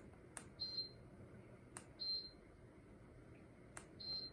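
Lasko tower fan heater giving three short, high beeps, each just after the click of a remote button press: the unit acknowledging commands.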